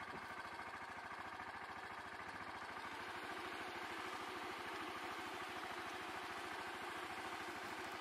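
A quad ATV's engine idling steadily, with an even, fast low pulse.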